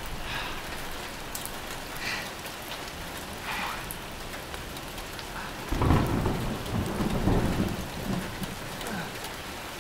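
Steady rain falling, with a low rumble of thunder that starts about six seconds in and dies away over the next two seconds.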